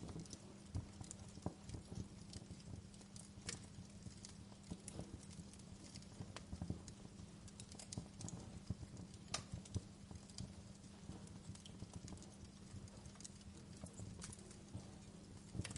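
Fireplace crackling: irregular sharp pops and snaps over a soft low rumble, with a steady low hum underneath.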